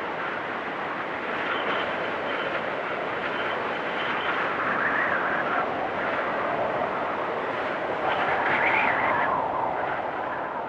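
Wind storm blowing in a steady rush, with faint high whistling and gusts that swell and fall back about five and nine seconds in.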